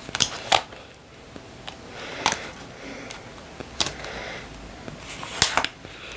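Sticker sheets and paper being handled: soft rustling with about half a dozen light clicks and taps as stickers are peeled off and pressed onto a page.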